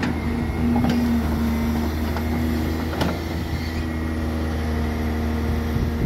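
Backhoe's diesel engine running steadily at work, with a couple of sharp knocks about one and three seconds in.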